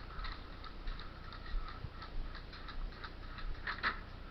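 Footsteps: a string of light, irregular crunching clicks, about two a second, with a louder cluster near the end.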